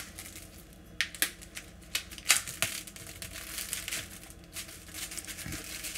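Plastic packaging around a raw lamb shoulder crinkling and crackling in irregular bursts as it is handled and opened.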